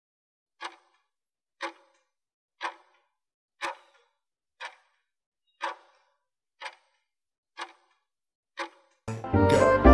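Countdown timer's clock-tick sound effect, nine ticks one second apart, marking the last seconds of a work interval. Music starts near the end, signalling the break.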